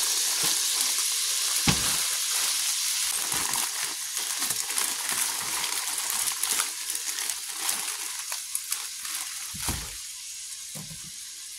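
Diced onions sizzling in browned butter in a stainless steel pot as they are poured in; the sizzle slowly dies down, with a dull knock about two seconds in and another near the end.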